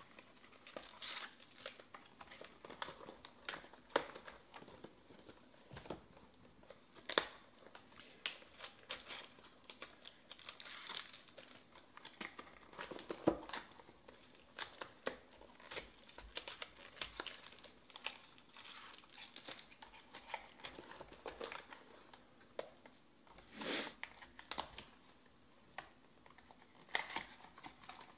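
Foil wrappers of trading card packs crinkling and tearing as packs are opened by hand, with cardboard rustling and scattered small clicks and taps at an irregular pace.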